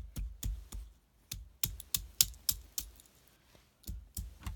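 A rapid run of light taps or clicks, about three a second, with a short break in the middle and a longer pause near the end before the tapping starts again.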